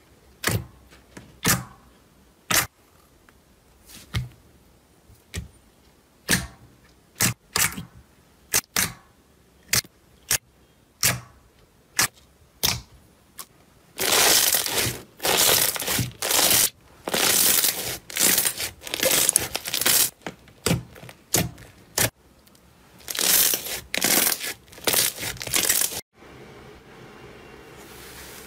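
Hands pressing and poking glossy clear slime, making sharp pops and clicks of trapped air every half second to a second. About halfway through, this turns to dense crackling bursts as bubble-filled clear slime is squeezed between both palms. A softer steady rustle follows near the end.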